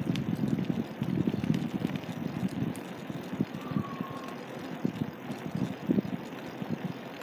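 Rumbling, fluttering wind and road noise from moving along a paved road, easing a little after about three seconds, with a brief faint high chirp around the middle.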